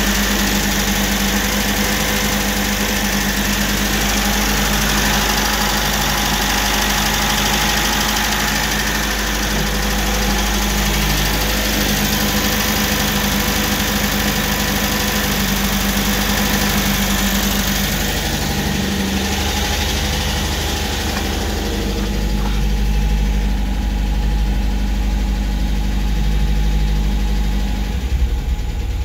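MGB GT's 1.8-litre B-series four-cylinder engine idling cold, with a tapping noise from the engine. Toward the end the sound turns duller and deeper, heard from inside the car, and there is a single brief knock near the end.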